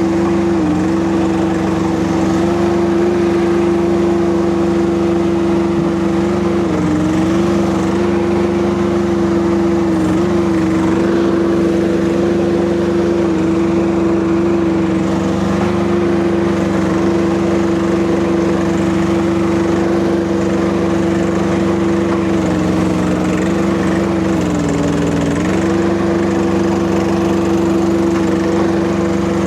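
Small Kubota diesel engine of a Rippa RS04 mini skid steer running steadily at high throttle, its pitch dipping briefly a few times as it loads down while working, the longest dip near the end.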